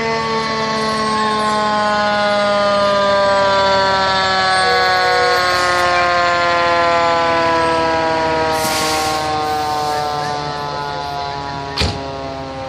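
Fire engine siren winding down, one long wail whose pitch falls slowly and steadily throughout. There is a brief hiss partway through and a sharp knock near the end.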